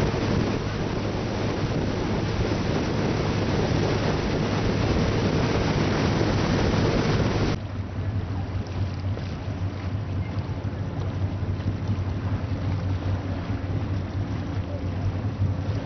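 Motorboat engine running with a steady low hum, under wind buffeting the microphone and the rush of water past the hull. About halfway through the wind and water hiss drops away suddenly, leaving mainly the engine hum.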